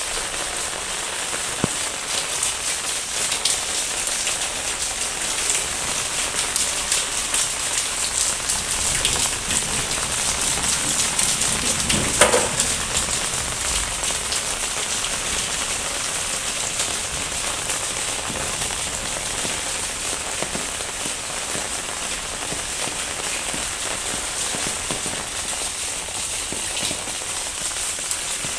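Steady rain falling on wet paving and potted plants: a dense, even hiss of drops. A brief louder sound stands out about twelve seconds in.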